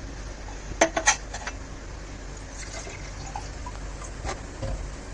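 Water being poured from a glass into a cooking pan, with two sharp clinks about a second in.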